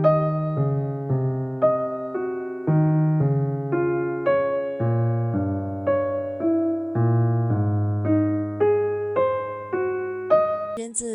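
Background music: a gentle electric piano melody, notes about every half second over a low bass line.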